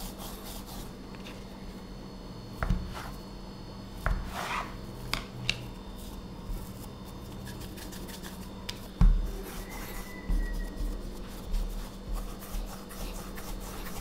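A knife cutting through soft potato dough on a bamboo cutting board, with a few knocks of the blade and dough on the wood in the first half. From about nine seconds in, hands roll a piece of dough back and forth on the board, rubbing and thudding softly.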